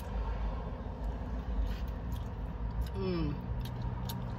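Steady low hum inside a parked car's cabin while fried chicken is pulled apart by hand, with a short falling vocal sound about three seconds in.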